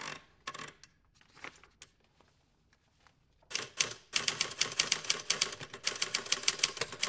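Typewriter keystroke sound effect as title text types onto the screen: a few separate clacks at first, a short pause, then a fast run of keystrokes, several a second, from about halfway in.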